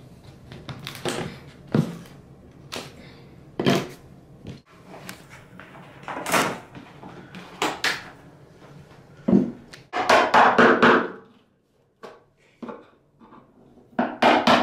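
Irregular knocks, snaps and scrapes as quarter-round trim is pried and pulled off along the base of a bathtub, with one longer, louder stretch of noise about ten seconds in.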